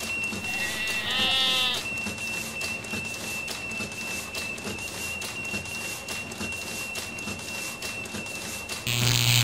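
Electronic soundtrack sound design: a steady high-pitched whine held throughout over a low hum, with a short wavering animal-like call about a second in. Near the end comes a loud burst of static-like noise with a heavy low buzz.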